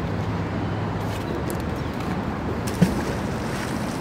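Steady low rumble of outdoor wind on the microphone, with one short thump about three quarters of the way through.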